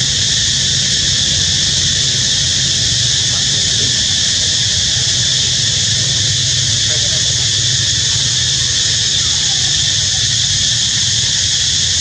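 Steady, high-pitched insect chorus droning without a break, over a low steady hum.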